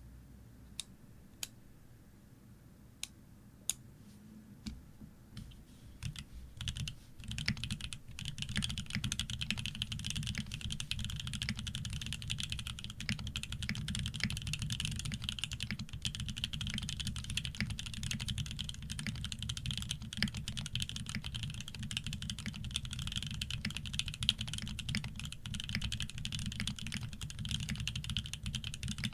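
Shark60 custom mechanical keyboard with OP Black switches on 150 g springs lubed with Krytox 105, an aluminium plate and PBT keycaps, being typed on. First a handful of single keystrokes spaced apart, then from about seven seconds in, fast continuous typing.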